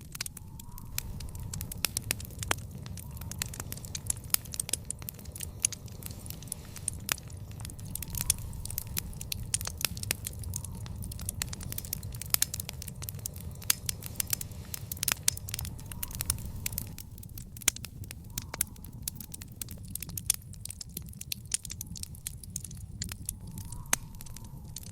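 Fire in a backyard fire pit crackling, with frequent sharp pops and snaps over a steady low rumble of burning.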